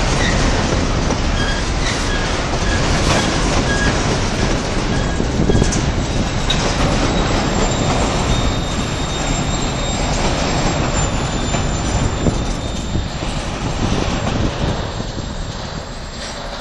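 Empty freight cars, hoppers and boxcars, rolling past close by with a steady rumble and clatter of steel wheels on rail. A thin high wheel squeal sounds in the middle. The sound fades near the end as the last car moves away.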